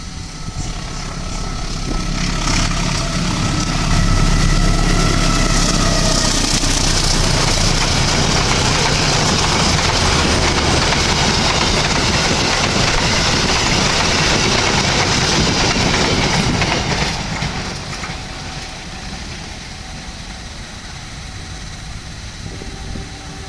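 Diesel-hauled passenger train passing close by: the locomotive's engine is heard approaching, then the coaches' wheels on the rails make a loud, steady rush for about thirteen seconds. The noise drops off abruptly near the end as the train moves away, leaving a lower rumble.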